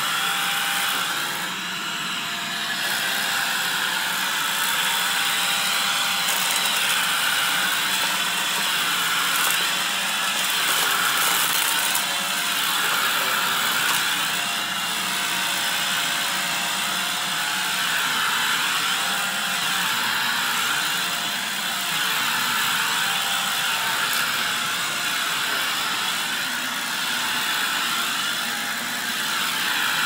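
Upright bagless vacuum cleaner running on carpet, its pitch wavering up and down every couple of seconds as it is pushed back and forth, with a rattling crunch as it sucks up dry debris.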